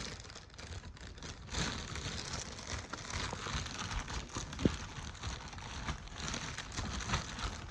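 Plastic bag crinkling and rustling as it is handled and pulled open, with a sharp knock about four and a half seconds in.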